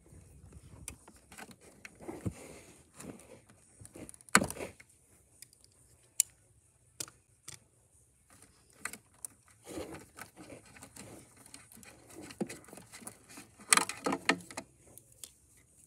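Hands working through a generator's wiring harness: wires and plastic connectors rustling and clicking, with a sharp click about four seconds in and a cluster of louder clicks near the end.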